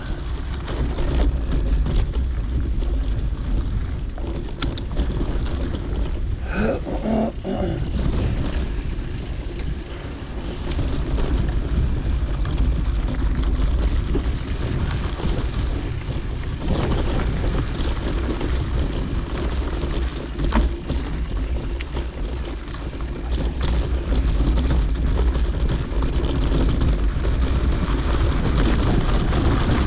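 Wind rumbling on a GoPro action camera's microphone while a mountain bike is ridden, with tyre noise on the dirt trail and scattered short rattles. A brief pitched sound comes about seven seconds in.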